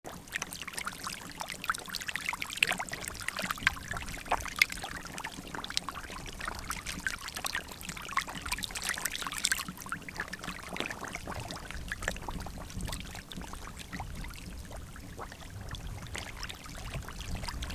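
Eels and fish thrashing in shallow muddy water, a steady patter of small splashes and sloshes, busier in the first half.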